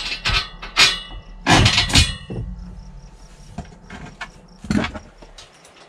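Black tubular-steel futon frame knocking and clanking against a slotted steel angle-iron rail as it is shifted into place by hand: a cluster of sharp metal knocks in the first two seconds and one more near the end.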